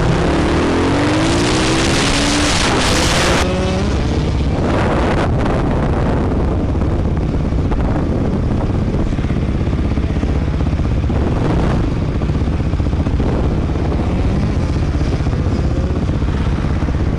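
Husqvarna supermotard engine heard from the rider's helmet camera, with wind rushing over the microphone as the bike slows; the engine note slides down and back up over the first few seconds. From about three and a half seconds in the wind drops away and the engine runs steadily at low speed.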